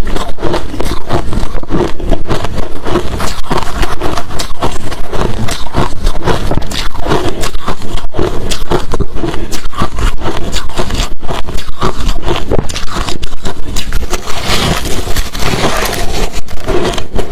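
Hard crushed ice and shaved ice chunks being chewed close to the microphone: a loud, continuous run of sharp crunches, several a second.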